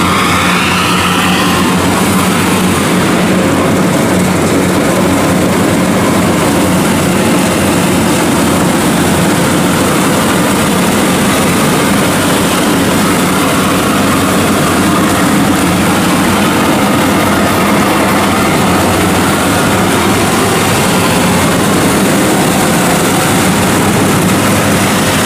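WD115 Pro tracked rice combine harvester running steadily under load while harvesting, its engine and threshing machinery making a loud, even drone with a low hum underneath.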